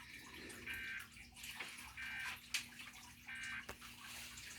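Emergency Alert System End-of-Message data tones: three short warbling bursts of SAME data, each about a third of a second long and a little over a second apart, marking the end of the alert message. A steady hiss of radio static runs underneath, with a single click near the middle.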